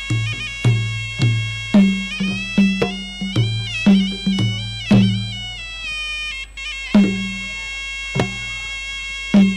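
Traditional Khmer boxing ring music: a sralai reed oboe plays a continuous, wavering melody with sliding notes over low drum strokes in two pitches. The drumming has a gap a little after halfway, and the oboe briefly drops out near the same point.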